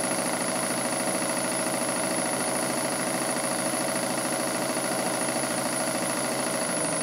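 A model steam engine, a Stuart No. 10, running steadily at a fast even beat as it belt-drives a PM Research dynamo that powers the LED lamps.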